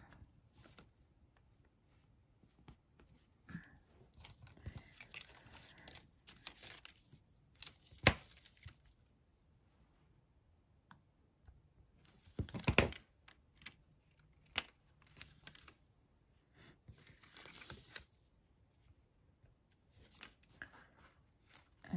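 Paper and card being handled in short, scattered spells of rustling and crinkling, with two sharp taps about eight and thirteen seconds in.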